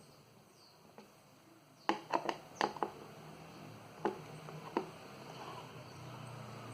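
Sharp clicks and light knocks of a screwdriver and hands working on a speaker box while its screws are taken out: a quick run of five or six clicks about two seconds in, then two single clicks, with a low hum coming up near the end.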